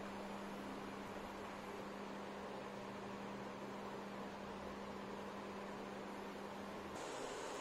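Induction cooktop running under a pot of water, giving a steady low electrical hum with a faint fan hiss. About seven seconds in, the hum's tone drops out and a higher hiss takes over.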